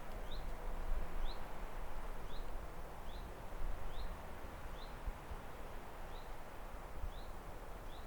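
A bird repeating a short, high, upward-sliding chirp about once a second over a steady rushing background noise.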